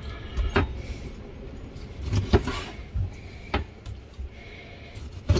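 A kitchen knife slicing a squid tube on a plastic chopping board: several separate knocks and taps of the blade on the board, over a low steady rumble.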